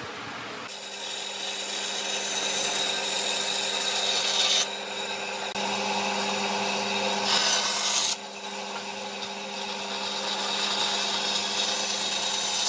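A power tool working a piece of wood in three passes, with its steady motor hum carrying on in the gaps between them.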